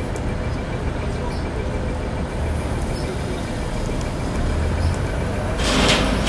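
Truck-mounted mobile crane's diesel engine running steadily with a low rumble while it lowers a load. A louder burst of noise comes near the end.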